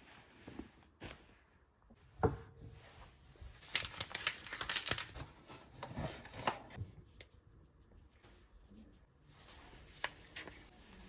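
Rustling and light clicking of things being handled, with a sharp knock about two seconds in and a busy stretch of rustles and clicks around four to five seconds in, quieter toward the end.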